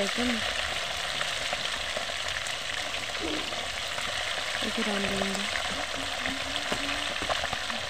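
Parboiled chicken pieces deep-frying in hot cooking oil in a wok, a steady dense sizzle dotted with small crackles and pops.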